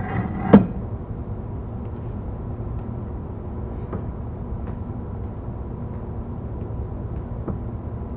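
A single sharp metal clank about half a second in, from a steel pipe used as a lever meeting rebar clamped in a vise. After it comes a steady low rumble with a couple of faint taps while the rebar is bent.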